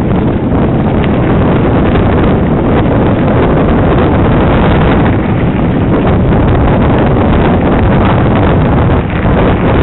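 Heavy wind buffeting a helmet camera's microphone as a mountain bike rolls down a gravel track, with the tyres rumbling over the stones and the bike rattling.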